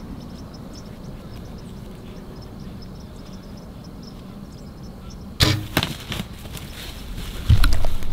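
A bow shot at a whitetail doe about five seconds in: a sudden sharp crack, then a second one a moment later, as the arrow tipped with a single-bevel broadhead is loosed and strikes the deer. Loud low thuds follow near the end as the doe bolts.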